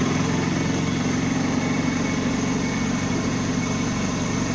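Auto rickshaw's small engine running steadily with an even drone.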